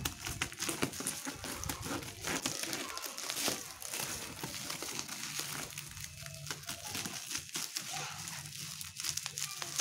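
Bubble wrap and plastic film crinkling and crackling as a parcel's wrapping is cut with scissors and pulled apart by hand, a steady run of small irregular crackles.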